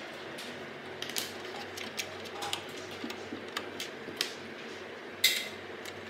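Scattered light clicks and taps of hands handling SATA cables and metal parts inside a desktop computer case, with one louder clatter about five seconds in.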